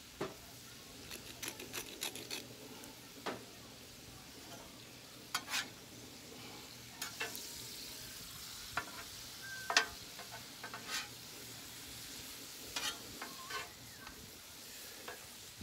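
Food sizzling steadily on a hot flat-top griddle while two metal spatulas scrape and click against the griddle, turning and chopping cubed steak.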